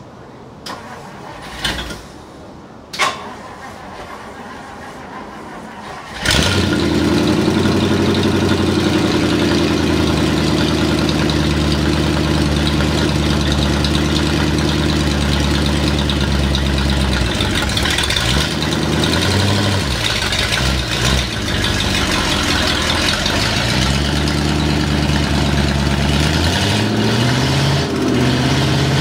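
A few sharp clicks, then an old Ford Thunderbird's engine starts about six seconds in and runs steadily, its speed rising and falling a few times later on.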